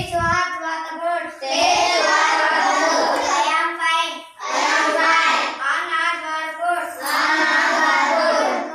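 A group of schoolchildren singing together in unison, in phrases of two to three seconds with short breaks between.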